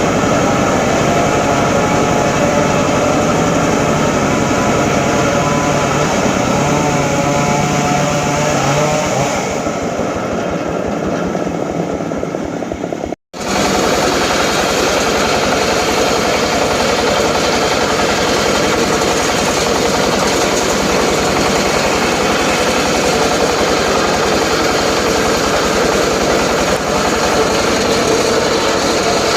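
Homemade circular saw rig ripping teak timber: a loud, steady run of the saw through the wood. About ten seconds in the cutting noise fades, the sound breaks off abruptly for a moment, and the sawing then carries on steadily.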